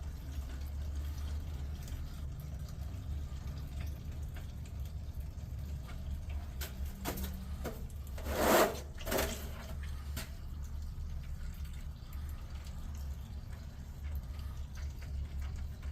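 Engine oil pouring from the oil pan's drain hole into a drain pan, over a steady low hum. A loud, brief noise comes about eight and a half seconds in, with a second, shorter one just after.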